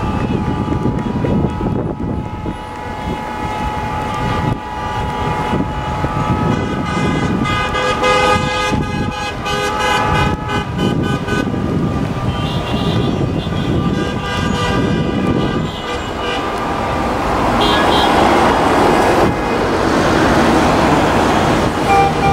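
Many car horns honking together in protest, long overlapping blasts at several pitches, over the running engines of a queue of cars at a toll plaza; the din grows louder near the end.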